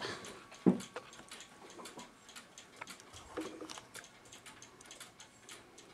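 A mechanical clock ticking steadily and faintly, with one thump just under a second in.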